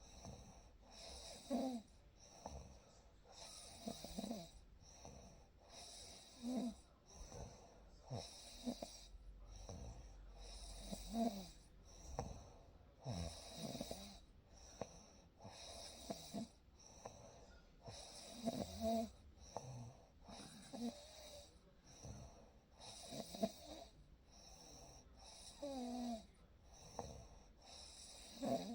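A sleeping person snoring in a steady rhythm, about one breath every two and a half seconds, each with a buzzing snore and an airy hiss.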